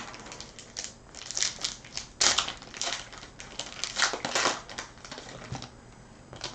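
Trading-card packs and chromium cards being handled: irregular crinkling and rustling, loudest about two seconds in and again around four seconds in.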